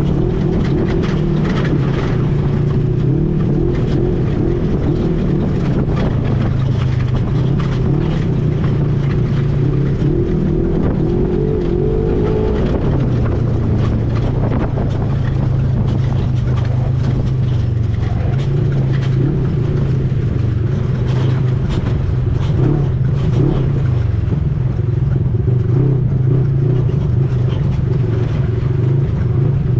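ATV engine running under way, a steady low drone with a noisy rush over it; the engine pitch climbs briefly about twelve seconds in, then drops back.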